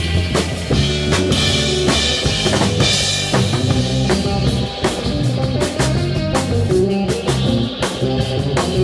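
A live instrumental rock band playing: a drum kit keeping a steady beat with bass drum and snare hits and cymbal crashes, under electric bass and electric guitar.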